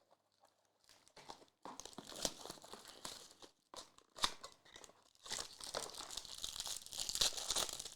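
A foil trading-card pack wrapper being torn open and crinkled, in two spells of crinkling with a sharp click between them.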